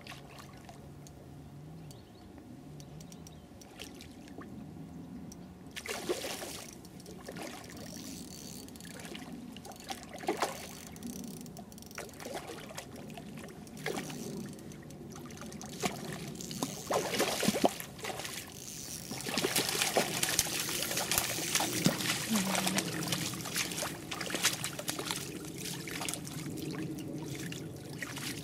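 Hooked trout splashing at the surface of a pond as it is played on a spinning rod, then water sloshing and splashing in the shallows as it is landed by hand. The splashes come in irregular bursts after a quiet start and grow denser and louder over the last third.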